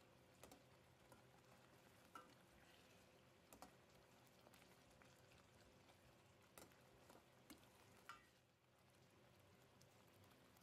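Faint stirring of thick, reducing masala gravy in a steel pot with a metal spoon: a low simmering sizzle with the spoon clinking and scraping against the pot about half a dozen times.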